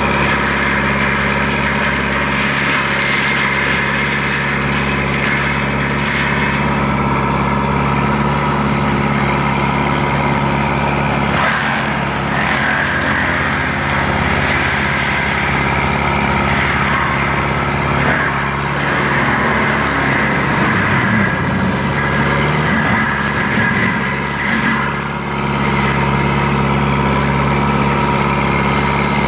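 Lamtrac LTR6125 forestry mulcher with a Denis Cimaf 180D head, its diesel engine running steadily at working speed as the tracked machine moves about. The engine note wavers and dips briefly about 20 to 25 seconds in, like a short change in load.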